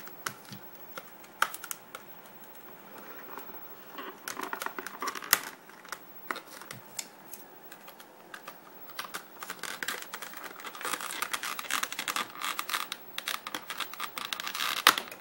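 Serrated scissors snipping and crunching through a hard-plastic blister pack, an irregular run of sharp clicks and crackles that grows busier in the second half.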